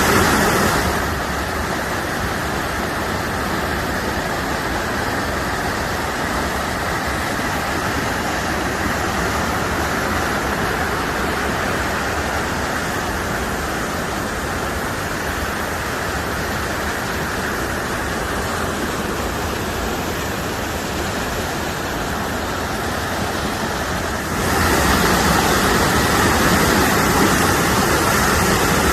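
Waterfall: a steady rush of falling water that turns softer and duller about a second in, then louder and brighter again near the end.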